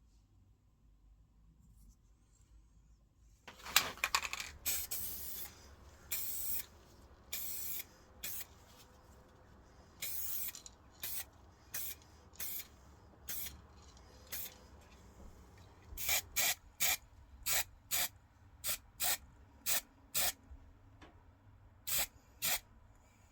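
Paint spraying in separate hissing bursts, starting a few seconds in with longer sprays and ending in a run of short bursts about two a second, as in priming or painting the metal parts of a diecast model.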